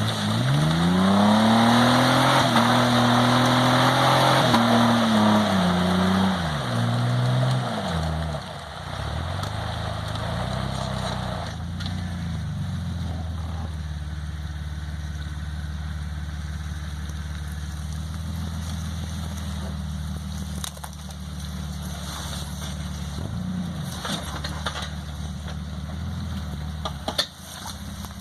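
Jeep Wrangler engine revved up hard in the first two seconds and held high for several seconds with a loud rushing noise over it, then falling back by about eight seconds to a steady low-speed run for the rest. A sharp click near the end.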